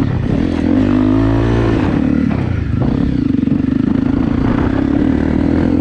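Single-cylinder motorcycle engine running under throttle: it revs up and eases back off around a second in, then holds a fairly steady pitch.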